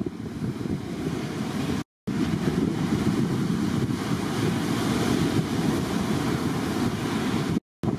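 Wind buffeting the microphone over the steady wash of breaking surf, cut to silence twice very briefly, about two seconds in and near the end.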